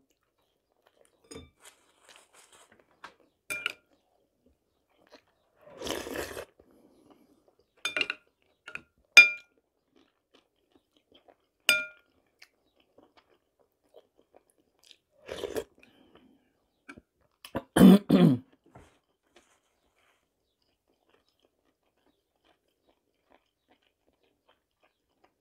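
Close-up eating sounds: chewing and crunching of crisp fried bread, with a metal spoon clinking against a glass bowl a few times, each clink ringing briefly. A louder burst of mouth noise comes about eighteen seconds in.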